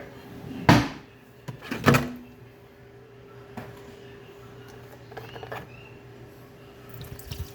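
Two loud knocks about a second apart, then a few faint clicks, over a steady low hum.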